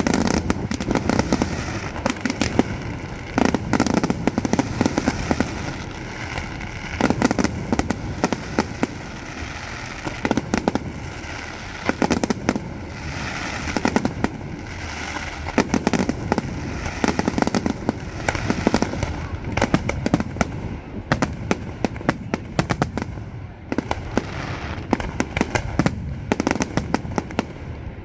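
Fireworks display: aerial shells bursting in quick, irregular succession, with loud bangs every second or two and crackling in between.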